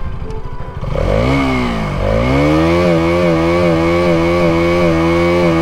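KTM Duke 200's single-cylinder engine, in first gear, idling briefly, then revved sharply about a second in. It dips back, climbs again, and holds at a steady high rev with a slight waver.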